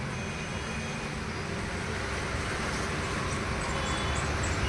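Steady background noise with a low rumble and hiss, with no distinct events.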